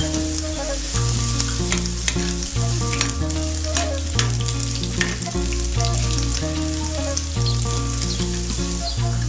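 Sliced ginger with chana dal, urad dal and coriander seeds sizzling and crackling in hot oil, with a spatula stirring them in the pan. Background music with a steady bass line plays underneath.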